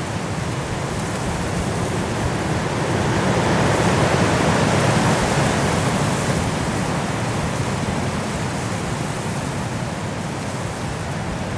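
Strong wind of a snowstorm making a steady rushing noise that swells louder about a third of the way in, then eases off.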